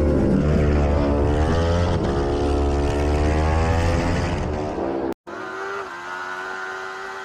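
Racing motorcycle engine at high revs heard on board, its pitch rising and dipping as the rider works the throttle and gears. About five seconds in the sound cuts out for an instant and returns quieter as a steady, even engine note.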